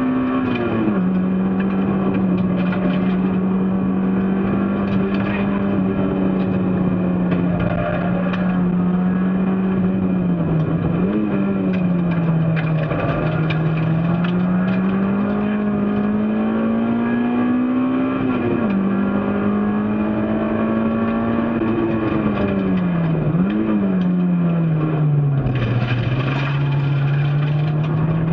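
Race car's engine running continuously under throttle. Its note climbs slowly and falls back sharply several times as the gears change and the throttle lifts, with two quick blips of revs.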